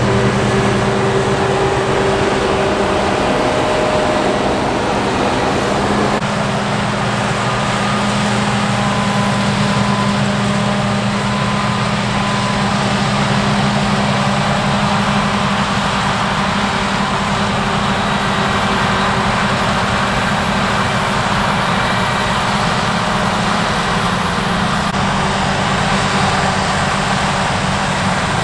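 Large farm harvest machinery running steadily: a dense engine and machine noise with a low hum. The hum shifts about six seconds in and again near the end.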